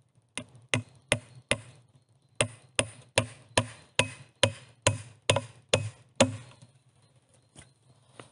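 Hammer driving a nail through a wooden crossbar into poles: a run of sharp strikes, four, a short pause, then about ten more at roughly two and a half a second.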